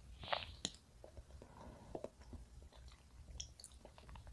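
Faint, sticky sounds of a spreader knife scooping thick blueberry jam from a glass jar and spreading it onto a soft castella sponge cake, with scattered small clicks and squishes.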